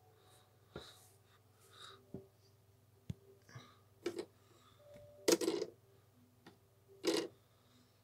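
Faint handling sounds with the vacuum cleaner switched off: soft rustles, taps and clicks as the cloth is moved about, with two louder rustles about five and seven seconds in.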